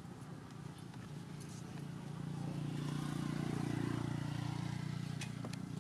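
A motor vehicle's engine passing by: a low hum that swells about two seconds in and fades away near the end, with a few faint clicks.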